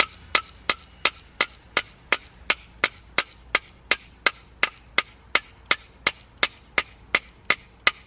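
CRANACH multitool's small hammer head striking a steel nail in a wooden stump, about three strikes a second, evenly paced.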